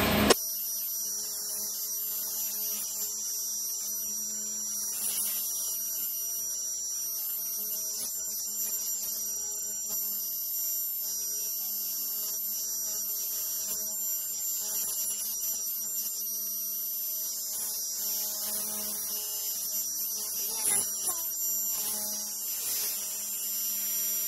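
Steady electrical hum with faint high-pitched whines, starting abruptly as the louder sound before it cuts off.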